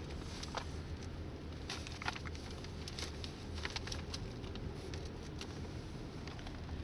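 Steady low rumble of a vehicle driving, heard from inside the cab, with irregular light clicks and taps scattered through it.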